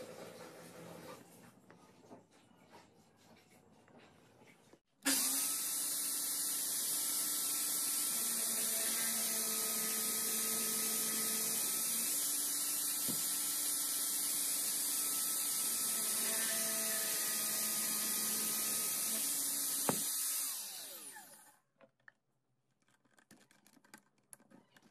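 Small electric drill running and boring a hole into a wooden block, with a steady whine. It starts suddenly about five seconds in and runs down with falling pitch several seconds before the end.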